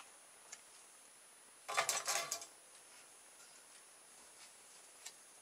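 A brief mechanical rattle of quick clicks lasting under a second, a couple of seconds in, with a single faint click before it and another near the end, over a faint steady high whine.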